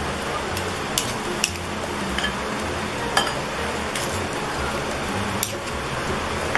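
Two metal spoons mixing a thick, doughy fish-and-vegetable mixture in a bowl, with a few sharp clinks of the spoons against the bowl's rim over a steady background hiss.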